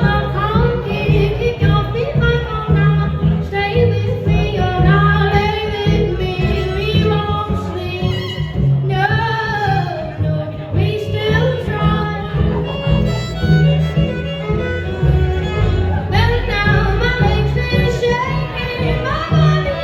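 Live band music recorded on a phone: a woman singing a folk-country song, accompanied by fiddle over a steady bass.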